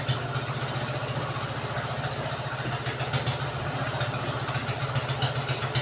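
Boat engine idling steadily with a fast, even pulse, with a few light knocks about three seconds in.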